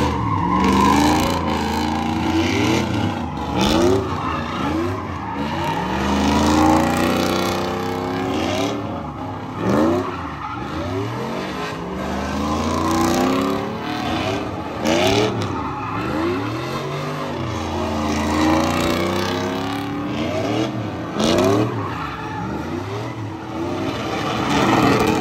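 Vehicle engine revved hard, its pitch rising and falling again and again every second or two, over a steady hiss of skidding tyres.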